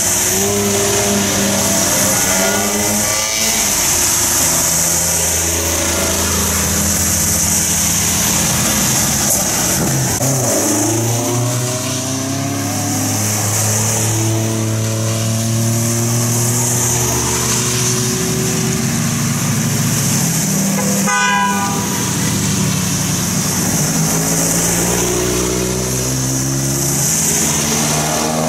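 Road traffic on a wet road: several cars and a truck pulling away and passing, their engine notes rising as they accelerate, over a steady hiss of tyres on wet tarmac. A brief high-pitched tone sounds about three-quarters of the way through.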